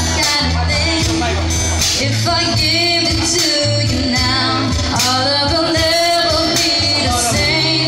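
A live band playing a song, a singer over a bass line and drums.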